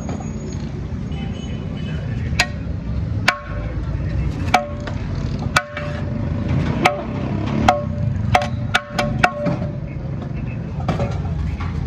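A metal serving scoop knocking against the rim and sides of a large aluminium biryani degh as rice is dug out, about ten irregular clanks, each ringing briefly, over a steady low background rumble.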